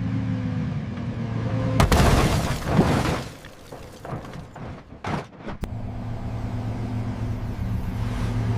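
Car crash sound effect: a car engine runs with a steady hum, then a loud impact about two seconds in is followed by about a second and a half of crunching and breaking. A few short knocks come near the middle, then the engine hum returns.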